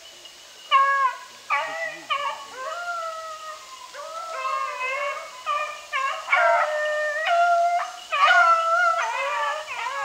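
A pack of beagles baying together, several long, drawn-out howls overlapping and bending in pitch: the hounds are in full cry on a scent trail.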